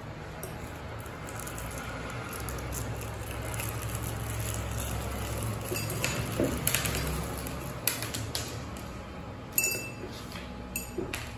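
Small Rockets candy tablets twisted out of their cellophane roll and dropping into a tall drinking glass, clinking against the glass several times in the second half, after a stretch of wrapper crinkling, over a steady low hum.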